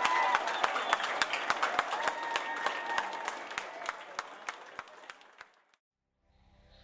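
Audience applauding, with scattered sharp claps, fading out over about five seconds to silence. Near the end a whooshing sound effect starts.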